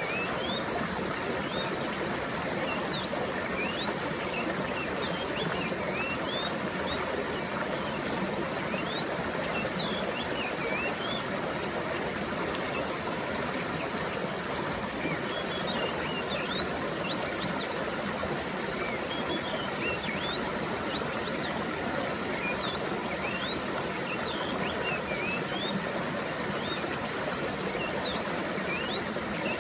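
Mountain stream water flowing steadily, with many small birds chirping in short, quick calls throughout.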